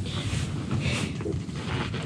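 Wind rushing and buffeting against a pop-up ice fishing shelter, with low rumbling wind noise on the microphone.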